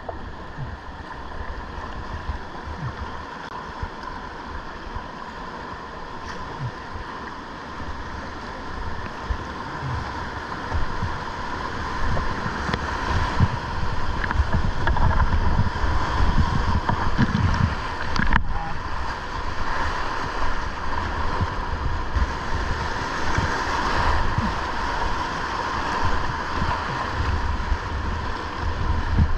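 Whitewater of a river rapid rushing and splashing, with wind buffeting the microphone in low thumps. It grows louder about halfway through.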